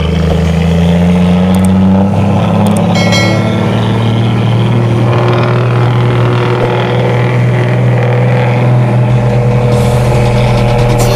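Mitsubishi Fuso truck's diesel engine running through its dual twin-pipe exhaust: a loud, deep, steady drone, with a brief higher-pitched tone about three seconds in.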